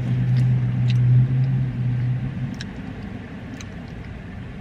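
A car's engine running as a low, steady hum that fades away about two and a half seconds in, leaving a softer rumble.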